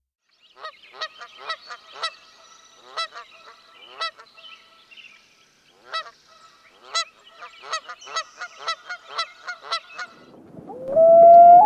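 Geese honking, a quick series of short calls with a brief pause about halfway through. Near the end a louder, steady horn-like tone comes in, gliding up at first and then holding.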